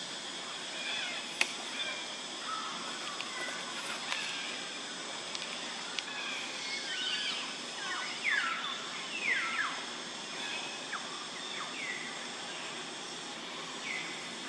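Outdoor woodland ambience: a steady high-pitched hiss with birds giving short falling whistled calls, several in a row in the middle and a couple near the end, and a few faint clicks.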